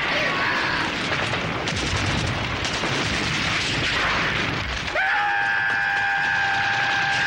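Film-soundtrack explosions and gunfire: about five seconds of blasts and shots, then a steady held tone takes over until it cuts off.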